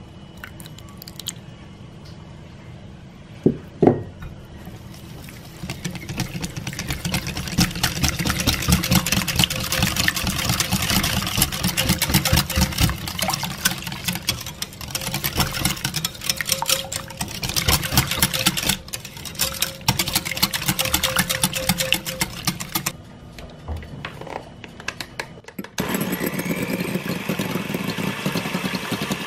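Two knocks about four seconds in. Then a wire whisk beats liquid custard filling in a glass bowl: a fast, continuous rattle of the wires against the bowl. Near the end an electric hand mixer starts, its motor running steadily as the beaters whip egg white.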